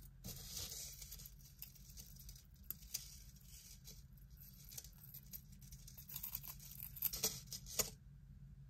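Faint rustling and a few light clicks of costume jewelry and bangles being handled and sorted, over a steady low hum.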